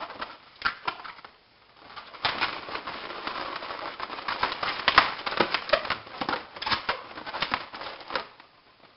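Latex 260 twisting balloons squeaking and crackling as they are rubbed, twisted and wrapped together into balloon flowers: a few squeaks about half a second in, then a dense run of rubbing squeaks from about two seconds in until near the end, with one sharper squeak midway.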